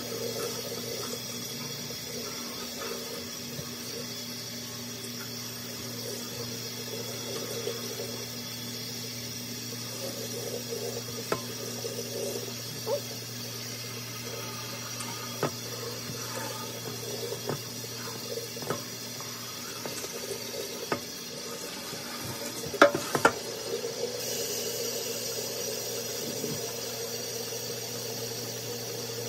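Water running steadily from a kitchen faucet's pull-out sprayer onto hair being rinsed over a stainless steel sink, with a low steady hum underneath. A few short knocks and clicks come from hands handling the sprayer head, the loudest two close together near the end.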